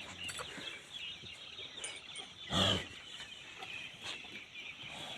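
Farm livestock, with one short loud animal call about two and a half seconds in, over continuous faint bird chirping.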